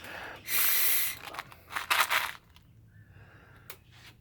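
Air-powered full-auto airsoft gun firing in two short hissing bursts, the second choppier with rapid clicks, weak and sputtering: the gun is low on air.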